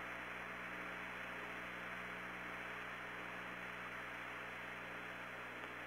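Steady hiss and hum of the Apollo 16 air-to-ground radio loop with no one transmitting.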